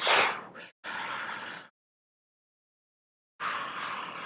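Three long, breathy whooshes of breath blown out, done as an energy clearing, with a silent pause of nearly two seconds before the last one.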